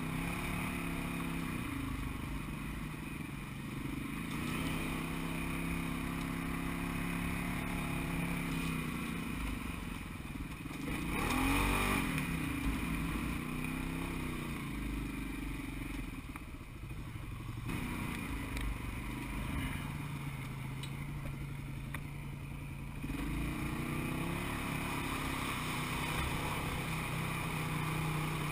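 Side-by-side UTV engine running over rough trail, its pitch rising and falling again and again as the throttle is worked, with a louder, noisier stretch about twelve seconds in. Near the end the machine is ploughing through river water, spray rushing over the front.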